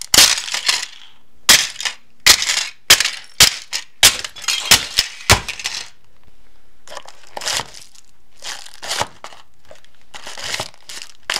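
Hard clear plastic toy water gun cracking and snapping into shards under a stiletto heel, a rapid run of sharp cracks. After a short pause, a small paper box is crushed underfoot with softer crunching.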